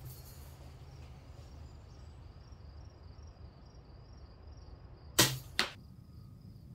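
Daisy Red Ryder spring-powered BB gun firing once about five seconds in: a sharp snap, followed a fraction of a second later by a second, quieter click.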